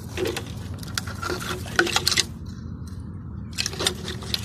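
Irregular rustling and crackling with scattered sharp clicks, the sharpest a little under two seconds in and again at about two seconds, over a steady low hum.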